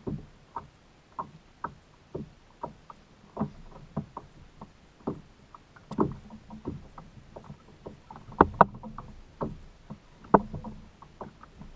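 Short irregular knocks and slaps against a kayak hull, about two a second, with a few louder ones in the last few seconds.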